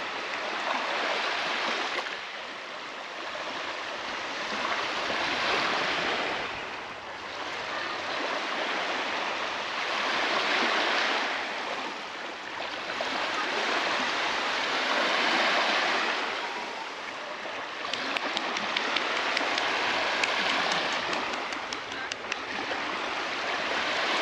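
Small Baltic Sea waves breaking on a sandy beach: the surf swells and falls back about every five seconds. Faint crackling comes through for a few seconds near the end.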